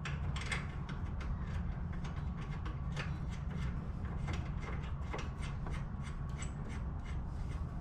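Light, irregular metallic clicks and scraping from a nut being hand-threaded onto a bolt, over a steady low hum.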